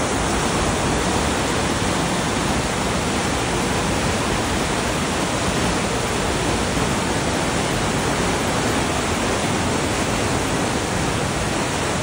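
Whitewater rushing and churning over rocks below a waterfall: a loud, steady noise of fast-flowing water.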